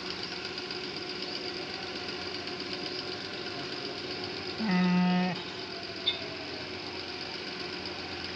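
A sheep bleats once about halfway through, a single pitched call of under a second, over a steady engine-like hum. A sharp click follows about a second later.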